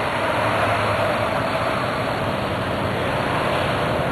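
Steady road noise: an even rushing with a faint steady hum running through it.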